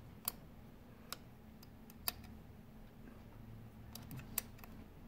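A few light metallic clicks of a 7 mm wrench seated on the small lock nut of a sewing machine's hook oil-flow adjusting screw, as the wrench is worked on the nut. The sharpest click comes about two seconds in and a small cluster follows around four seconds, over a faint steady hum.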